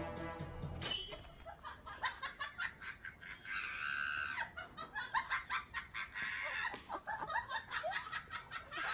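Chickens clucking and squawking in quick, irregular bursts. Music cuts off about a second in.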